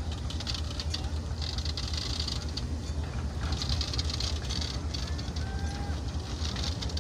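Cowans Sheldon railway breakdown crane and a coupled wagon moving slowly along the track: a steady low rumble, with a hissing that swells and fades about every two seconds.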